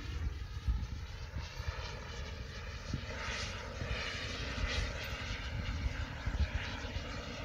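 Distant light propeller aircraft engine running as the plane flies overhead, its tone slowly sweeping up and down as it passes. Low wind rumble and crackles on the microphone lie underneath.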